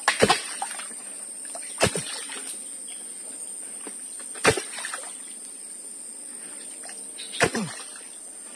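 Four sharp knocks a few seconds apart, a tool striking the wooden poles of a shelter frame under construction, each with a short falling ring. A steady high insect drone runs underneath.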